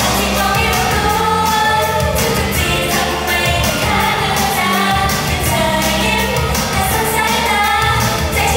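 Thai girl-group pop song: several young women singing over a backing track with a steady dance beat and bass.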